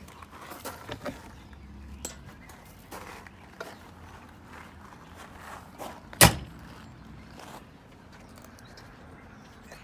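Light clicks and knocks from handling the rear door of a Can-Am Maverick X3 side-by-side, with one sharp clunk about six seconds in.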